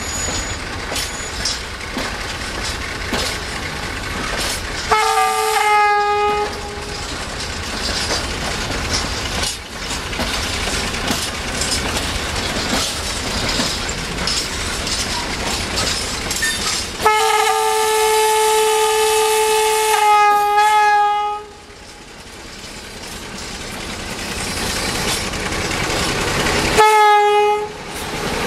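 Horn of a CFR Class 60 (Electroputere LDE 2100) diesel-electric locomotive sounding a single steady note with its overtones: a short blast about five seconds in, a long blast of about three seconds run straight into a shorter one around seventeen seconds in, and another short blast near the end. Between the blasts, freight wagons roll by with clicking wheels and the locomotive's diesel engine runs, growing louder as the locomotive draws near.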